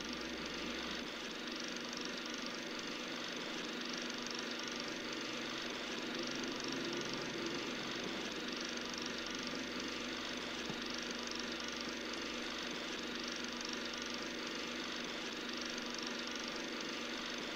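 A steady mechanical whirr with hiss and faint hum, even in level and unchanging.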